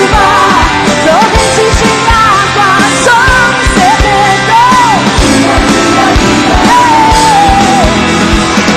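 Live gospel worship music: a woman sings the lead line with long, sliding notes over a full band with drums.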